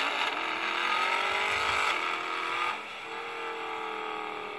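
Mercedes-AMG engine sound played from a novelty sound pen's tiny speaker, thin with no deep low end: revving with rising pitch for the first couple of seconds, then dropping back to a steadier, quieter run from about three seconds in.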